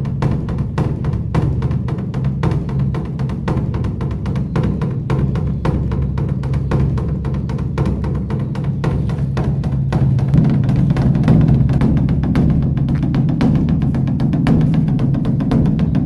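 Beopgo, the large Korean Buddhist dharma drum, beaten in a dense, rapid run of strokes with a deep booming body. It grows somewhat louder about ten seconds in.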